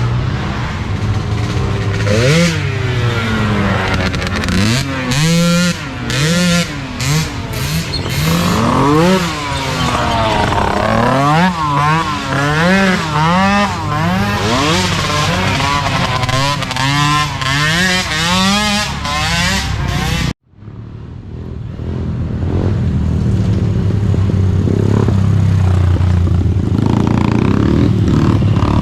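Small youth ATV engines racing, revving up and down so the pitch rises and falls again and again as they shift and accelerate. About two-thirds of the way through the sound cuts out abruptly, then fades back in as a steadier, denser run of several engines together.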